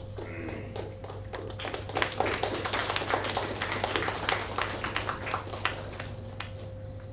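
Hand clapping from an audience, scattered applause that starts about a second and a half in and dies away near the end.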